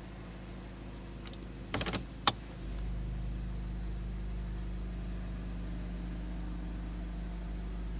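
2017 Mazda CX-5 starting from its push button: a brief starter crank and a sharp click about two seconds in, then the engine settles into a steady idle.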